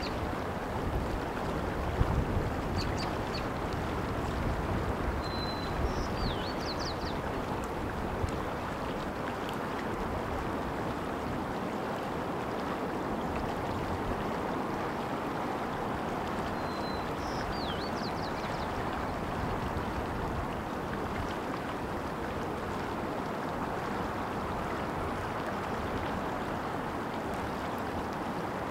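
Steady rush of running stream water. A small bird gives a short call, a brief level note followed by quick falling whistles, three times about eleven seconds apart, and there is a low rumble near the start.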